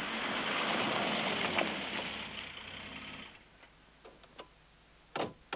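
A steady rushing hiss that cuts off suddenly about three seconds in. Then a few short, sharp clicks, two of them louder near the end, from shotgun shells knocking together in their cardboard box as they are handled.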